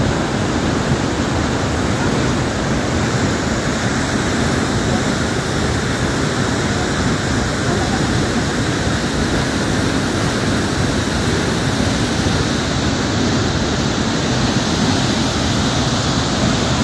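Waterfall and the rocky stream below it rushing: a loud, steady wash of falling and flowing water.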